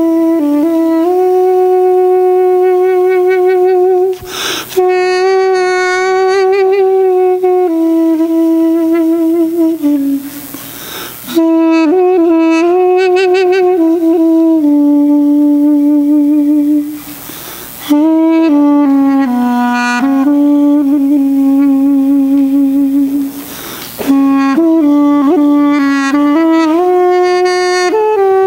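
Armenian duduk playing a slow solo melody of long held notes ornamented with trills, broken by short pauses for breath about every six seconds.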